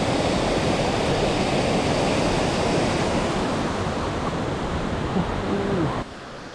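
Steady loud rush of a waterfall's falling water, which cuts off suddenly about six seconds in.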